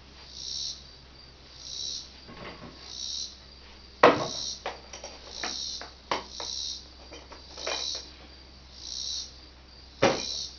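A few sharp knocks, like hammer blows in building work, the loudest about four seconds in and another near the end. Under them, insects buzz in a high pulsing rhythm, about one pulse every second and a bit.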